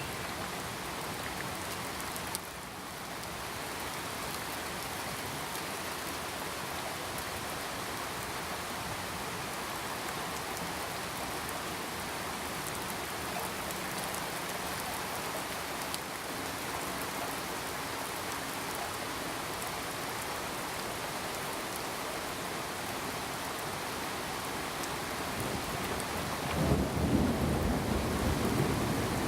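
Steady rain falling as an even hiss. Near the end a low, rolling rumble of thunder comes in and grows louder.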